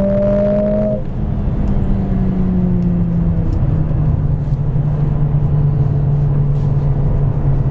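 Mercedes-AMG 45's turbocharged four-cylinder engine, heard from inside the cabin, pulling hard in fourth gear near 6,000 rpm. About a second in the throttle is lifted: the engine note drops suddenly and falls as the car slows, then settles into a steady cruise over road noise.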